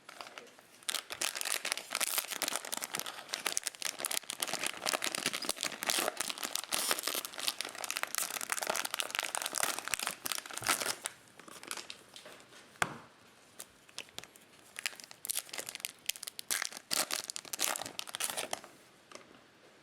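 Plastic wrapper of a Topps Chrome cello pack of baseball cards crinkling and tearing as it is opened, in two long spells with a pause and a single sharp snap between them.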